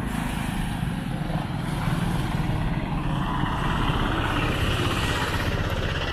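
Road traffic passing on a bridge: motorcycles and a three-wheeler auto-rickshaw driving by, a steady engine and tyre rumble that swells in the middle and eases off near the end.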